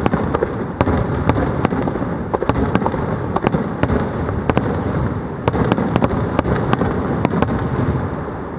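Fireworks going off in quick succession: a dense run of sharp cracks over a continuous low rumble, dying down near the end.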